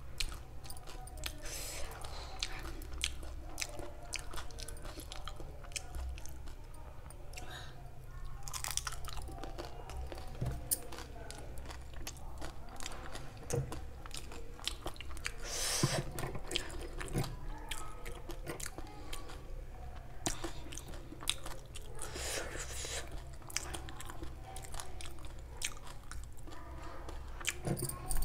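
Chewing and crunching a dahi puri, a crisp fried puri shell filled with yogurt and chutney, with many small wet mouth clicks and a few louder crunches.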